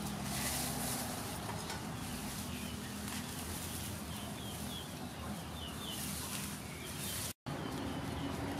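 Outdoor rural background with small birds chirping: a quick run of short calls in the middle, over a steady hiss and a faint low hum. The sound drops out briefly near the end.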